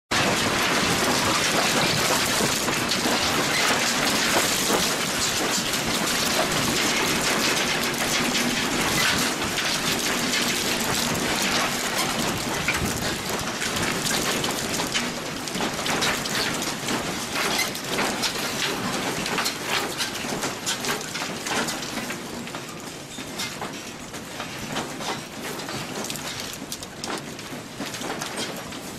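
Dense rattling and clattering of a house and its balcony shaking in a strong earthquake, full of sharp knocks and clicks. It eases off gradually over the last several seconds as the shaking subsides.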